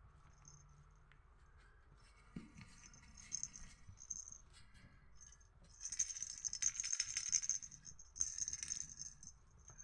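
Light rattling and jingling shaken in short bursts, three main spells, the longest and loudest about six seconds in.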